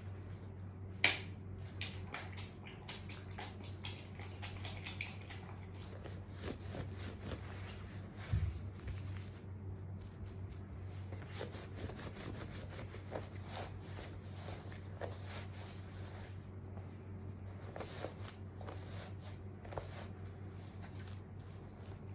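Soaked cotton sweatshirt squeezed and rubbed by hand, with a steady run of small wet clicks and drips. A sharp click sounds about a second in and a low thump about eight seconds in.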